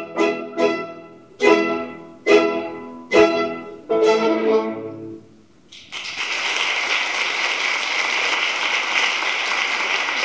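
Orchestra with strings playing a run of loud, sharply accented chords that slow down and end on a held chord. About six seconds in, a steady wash of applause takes over.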